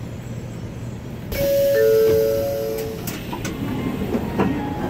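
The Shinkansen's door opens about a second in, letting in platform noise, and a two-note ding-dong chime sounds, higher note first and then a lower one, lasting about a second and a half. Footsteps and scattered knocks follow.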